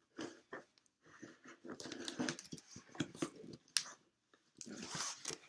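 A poor pair of scissors cutting through the packing tape on a cardboard box: irregular snips, scrapes and tape tearing, with a short pause just past the middle.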